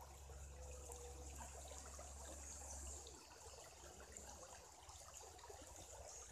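Near silence: faint outdoor background noise with a low hum, and no distinct sound events.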